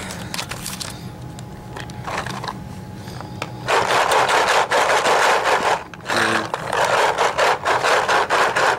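Paintballs rattling hard inside a plastic paintball loader fitted with an HK Army Epic Speedfeed, shaken upside down, with a brief pause about two-thirds through. Some balls work loose past the speedfeed when the loader is inverted.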